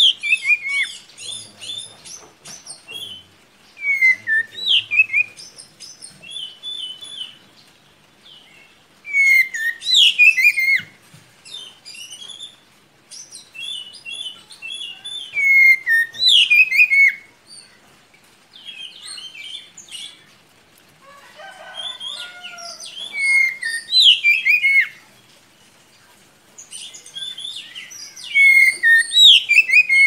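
Oriental magpie-robin (kacer) singing loud phrases of sweeping, rising and falling whistles mixed with trills, in bursts of a few seconds with short pauses between.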